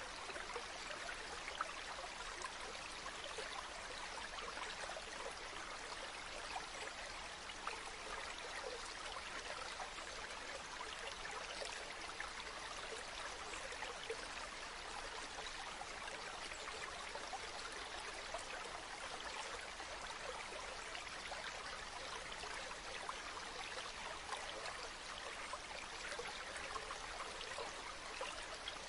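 A river flowing steadily, a continuous rush of water with small splashes and trickles through it.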